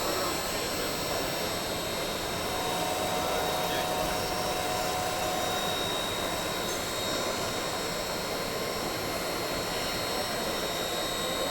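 CNC milling machine running steadily, a constant high whine over a steady rush of noise; a second, lower tone joins for about three seconds a few seconds in.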